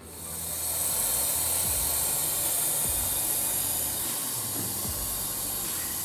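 Water running steadily in an RCA 2.0 portable washing machine: a loud, even hiss that starts abruptly and swells over the first second, with a few soft low knocks underneath.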